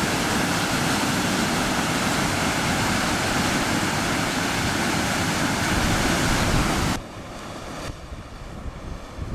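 Ocean surf breaking with wind buffeting the microphone, a loud, even rush with gusty low rumble. About seven seconds in it cuts abruptly to quieter surf and wind.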